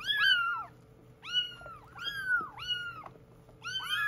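Several young kittens mewing over and over in high cries that rise and fall, often overlapping, as they are shampooed in a sink.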